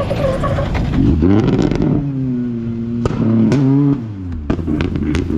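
Rally car passing at speed on a gravel stage, its engine note rising and dropping in steps through gear changes, with a few sharp cracks about three seconds in. The engine note drops off about four seconds in and gives way to a noisy rush of tyres on loose sand as the car goes by.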